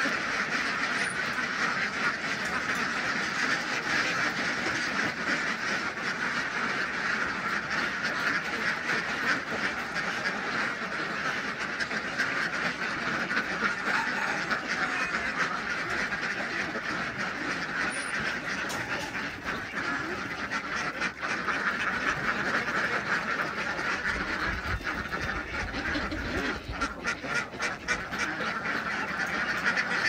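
A flock of white Pekin ducks quacking in a dense, continuous chorus while they feed together.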